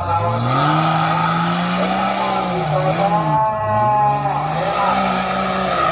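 The engine of a 1000cc-class off-road competition car revving hard under full throttle. The revs climb at the start, hold, dip about three and a half seconds in, and climb again.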